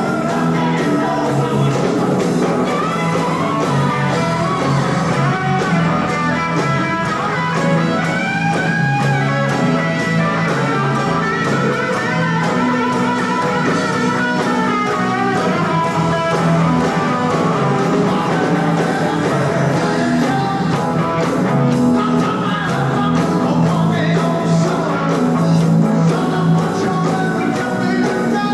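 Live rock and roll band playing, with guitar and a singer.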